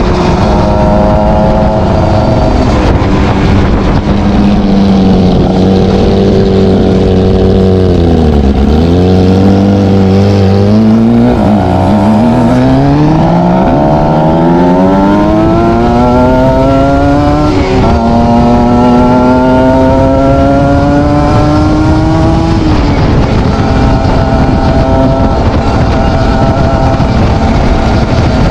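ZX 300 R motorcycle engine heard through its exhaust, running at a steady pitch, dipping briefly about eight seconds in, then revving up in several climbing runs, the longest rising smoothly, before dropping back to a steady run about twenty-three seconds in.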